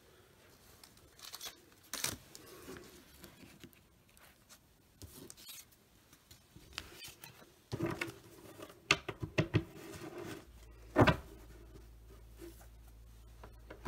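Trading cards and foil wax packs being handled: faint scattered rustles and taps, busiest toward the end with one louder tap. A faint low hum comes in near the end.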